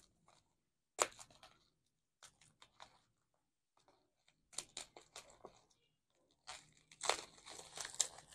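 Taped plastic courier pouch being slit with a utility knife and torn open: scattered short cuts and crinkles, then a longer stretch of plastic tearing and crinkling near the end.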